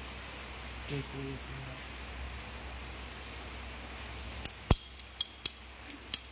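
A steady faint hiss, then from about four and a half seconds in a quick run of about eight sharp metallic clinks in under two seconds: a steel spanner clinking on the injector nozzle clamp bolt and cylinder head of a diesel engine as the nozzle is fitted.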